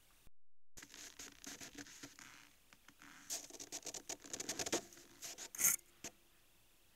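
A moose nosing at a trail camera up close: its muzzle and chin brush and scrape against the housing, a run of scratching and clicking rustles that thickens in the middle, with the loudest knock near the end.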